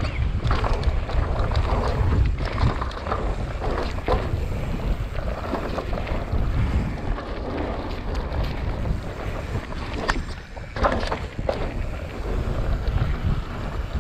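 Wind buffeting a helmet or bike-mounted camera microphone during a mountain bike descent, with scattered clicks and rattles from the bike running over the trail.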